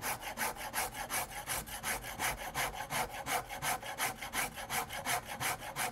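Coarse curved-tooth file rasping across a fire-charred walnut rifle stock in quick, even strokes, about six a second, cutting down through the burnt, punky layer toward sound hard walnut.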